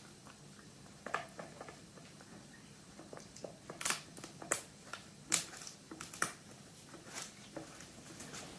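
Italian greyhound puppy chewing and gnawing a pig ear: irregular crunches and sharp cracks, coming thicker and louder around the middle.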